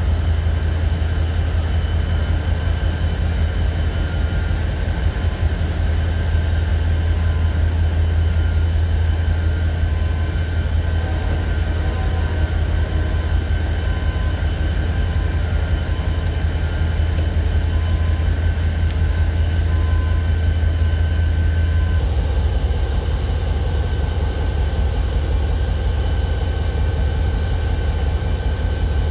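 Freight train of coal hopper cars rolling past: a steady deep rumble of wheels on rail, with a faint on-and-off high tone. About two-thirds of the way through, the sound cuts abruptly to a different steady rumble.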